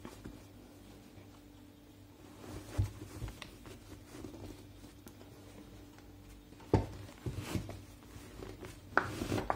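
Cotton tea towels rustling as they are stuffed and pressed around cloth-wrapped glass jars in a stainless-steel pressure cooker, wedging the jars so they cannot move. Soft knocks come about three seconds in, just before seven seconds and at nine seconds.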